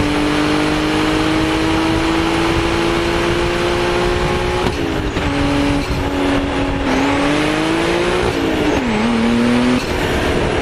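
The twin-turbo straight-six engine of a 1987 Toyota Soarer GZ20, heard from inside the cabin while driving. The revs rise slowly for the first four or five seconds, then drop sharply and climb again a few times, with one deep dip near the end.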